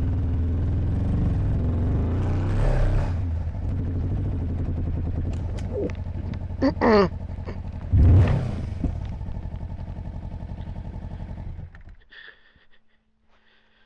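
Kawasaki Versys motorcycle engine running under load on a steep climb, then fading and cutting out about twelve seconds in: it has lost power and stalled because it could not be downshifted fast enough. A couple of short squeals and a sudden burst of noise come around the middle.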